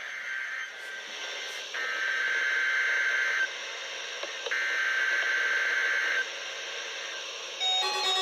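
NOAA Weather Radio SAME digital header bursts: three shrill, buzzing data-tone bursts of about a second and a half each, a second apart, over radio static hiss. Just before the end a receiver's electronic alert tones begin.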